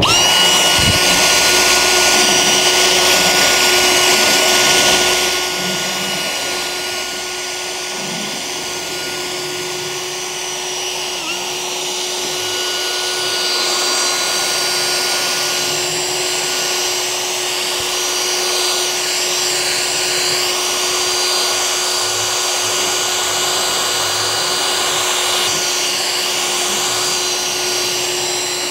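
Cordless drill spinning a bristle drill brush against a car carpet floor mat: a steady motor whine over the scrubbing hiss of bristles on carpet fibres, agitating carpet cleaner into the pile. It starts abruptly and is a little louder for the first five seconds or so.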